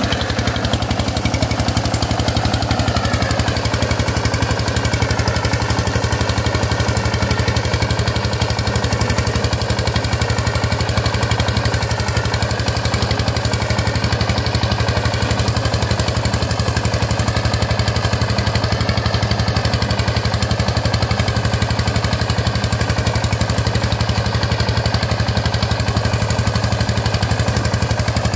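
Single-cylinder Changchai diesel engine of a two-wheel power tiller running steadily with a rapid, even chugging while the tiller pulls an implement across tilled soil.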